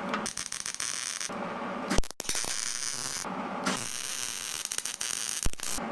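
Wire-feed welder arcing: the crackling sizzle of plug welds laid through drilled holes to fuse a steel plate onto an air compressor's mounting bracket, in four stretches broken by short pauses.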